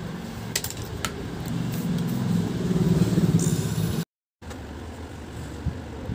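A low mechanical rumble that grows louder over a couple of seconds, then cuts off abruptly, followed by quieter background noise.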